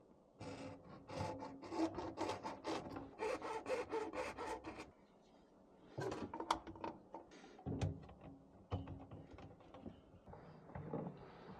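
A quick run of faint scraping or rubbing strokes, several a second, that stops about five seconds in, followed by scattered clicks and knocks.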